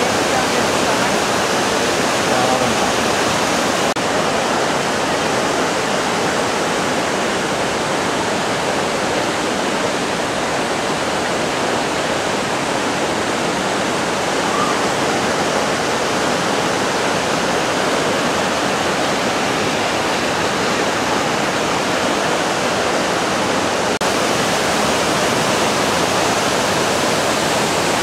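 The Roaring River's white-water cascade over the boulders of the Alluvial Fan waterfall: a loud, steady rush of falling water.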